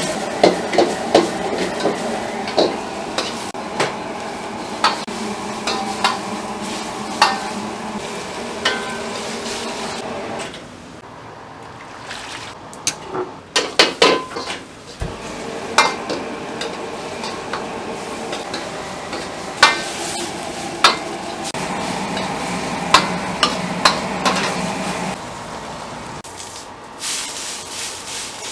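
Food sizzling in hot cookware while a metal utensil stirs it, with frequent sharp clinks against the pan. The sizzle drops away for a few seconds around the middle, with a cluster of clinks, then returns.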